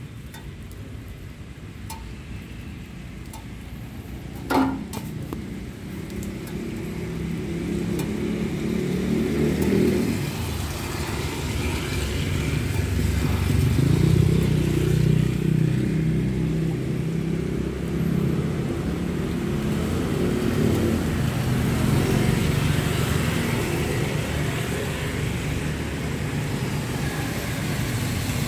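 Road traffic on a wet street: motorbikes and cars passing, engines running with tyre noise, growing louder after about six seconds and staying busy. A single brief sharp knock stands out about four and a half seconds in.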